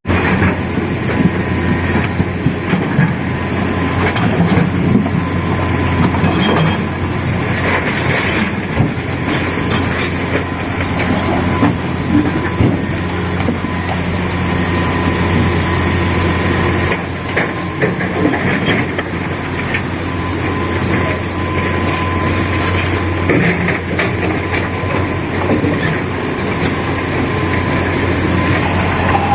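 Excavator engine running steadily with a constant low hum, with scattered knocks and clatter throughout.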